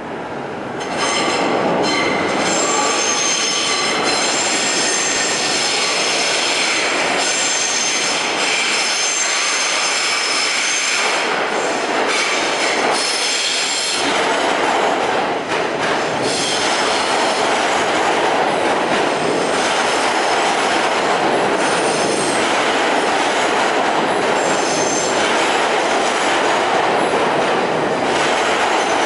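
Westinghouse-Amrail R68 subway train running in through a curving tunnel and into the station, with loud high-pitched steel wheel squeal on the curved track over the rumble and clatter of the wheels on the rails.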